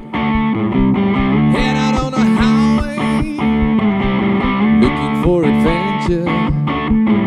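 Live electric guitar playing with a distorted tone, with a harmonica playing bent notes over it.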